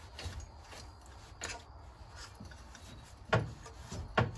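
Motorcycle front fork parts being handled on a rag-covered workbench: a few light knocks and clicks of the fork tube and its bushings with some rubbing, the two sharpest knocks a little after three and four seconds in.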